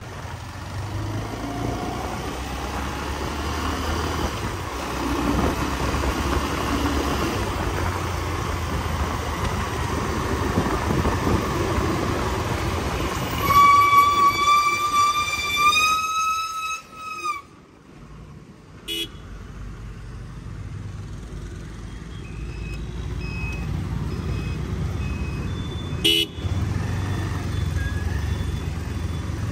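Benelli 302S motorcycle riding through town traffic: a steady low engine and road rumble throughout. About halfway through, a vehicle horn blares for about four seconds and is the loudest sound, and two short horn beeps follow later.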